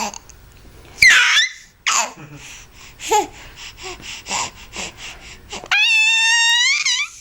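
High-pitched vocal chatter from a small Kiwi: a short falling squeal about a second in, then a run of quick stuttering pulses, ending in a long held squeal that rises slightly.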